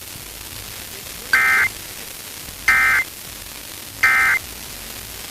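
Emergency Alert System end-of-message (EOM) data signal: three short bursts of digital data tones, evenly spaced about a second and a half apart, over a faint static hiss. The bursts mark the end of the broadcast alert.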